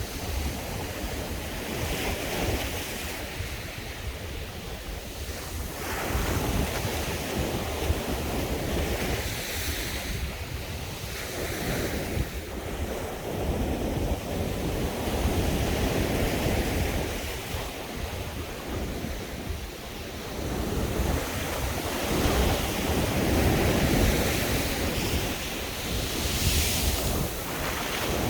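East Sea winter waves breaking and washing up on the beach, surging and falling back every few seconds, with wind rumbling on the microphone underneath.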